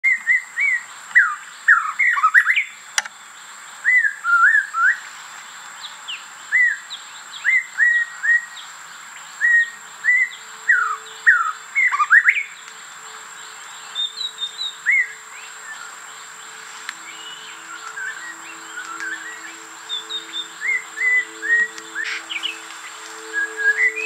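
White-rumped shama calling in short bursts of clear whistled notes and quick slurs rather than a full song, as if trying to start a proper song. The phrases come loud and close together at first, then fainter and sparser after about twelve seconds.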